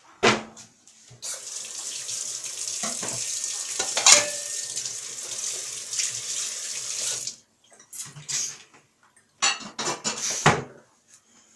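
Kitchen tap running into a stainless steel sink for about six seconds, with dishes clinking. Then a few separate clanks of crockery and a metal frying pan being handled and set down.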